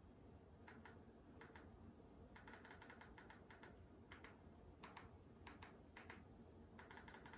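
Quiet clicking as a TV media-player menu is stepped through with a remote, one click per button press: single clicks spaced about a second apart, with two quick runs of several clicks, one about two and a half seconds in and one near the end.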